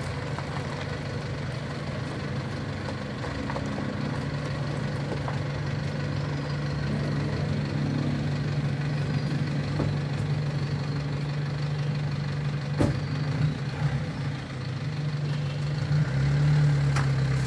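Engine of a pickup converted into a dump truck, loaded with sand, running steadily as the truck creeps forward, growing louder about three-quarters of the way through.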